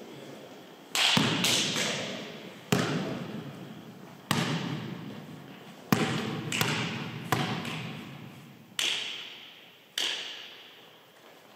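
Volleyball bounced on a hardwood gym floor: about nine sharp thuds at uneven spacing, each followed by a long echo in the large hall.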